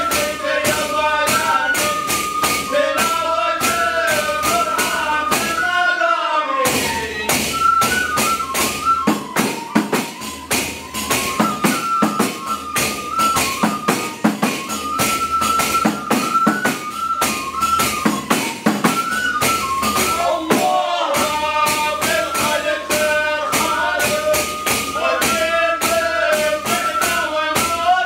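Traditional Hadrami devotional chanting: men's voices carry a stepping melody over hand frame drums beaten in a brisk, steady rhythm. The drums break off for a moment about six seconds in, then resume.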